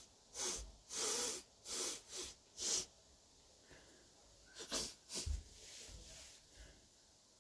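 Sharp nasal sniffs as a pinch of fine, dry nasal snuff is snorted up the nose: five quick sniffs in the first three seconds, then three more sharp sniffs about four and a half seconds in, followed by a longer, softer breath through the nose.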